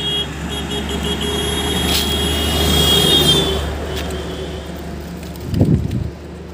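A bus passing on the road: engine hum and road noise swell to a peak about three seconds in, then fade, with a thin high steady tone over the first half. A short low thump comes near the end.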